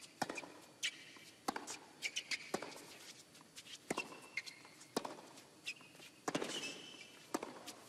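Tennis ball being struck back and forth in a baseline rally on a hard court, with racquet hits about a second apart. Sharp squeaks of tennis shoes on the court come between the hits as the players change direction.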